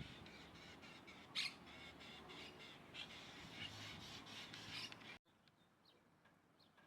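Wild birds calling: a series of short high calls over a light hiss, the loudest about a second and a half in. The sound cuts off abruptly about five seconds in, leaving only faint chirps.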